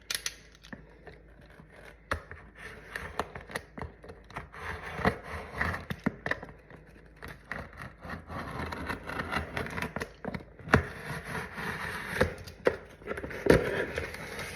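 Cardboard shipping box being opened by hand: irregular scraping, tearing and rustling of cardboard and packing, with sharp knocks and clicks, the loudest two in the second half.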